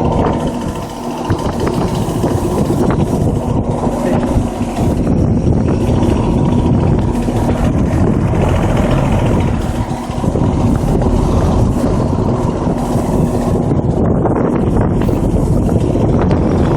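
2014 York heat pump outdoor unit with a Bristol compressor running in heating mode: a steady compressor hum under the whoosh of the outdoor fan.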